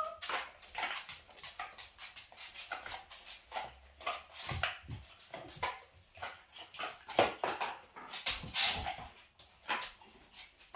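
A Labrador mother and her five-week-old puppy moving about on a wooden floor: a busy run of short claw clicks, taps and scuffles.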